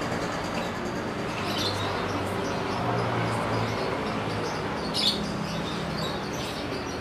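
Caged canaries and lovebirds chirping now and then, a few short high chirps with a clearer one about five seconds in, over a steady background hum.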